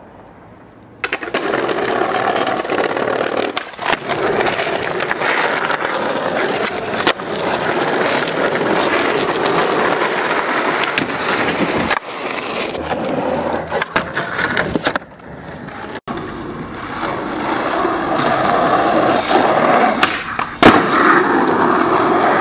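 Skateboard wheels rolling on rough asphalt, a loud steady rolling rumble that starts about a second in. It is broken by several sharp clacks and slaps of the board, and cuts off abruptly once partway through.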